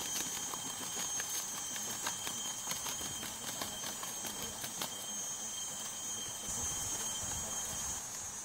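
Steady high-pitched drone of tropical insects, with a second, lower whine that stops near the end. Scattered light clicks in the first half.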